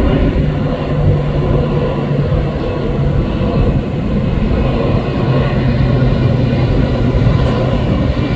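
Jet engines of a twin-engine Boeing 767 freighter passing low overhead. A loud, steady noise with a low hum that drops slightly in pitch about halfway through as the jet moves away.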